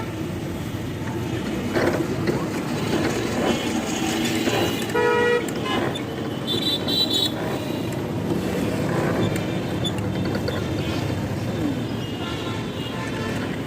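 Busy street traffic with vehicle horns honking: one short honk about five seconds in and a higher-pitched ringing toot around seven seconds in, over a steady background of road noise.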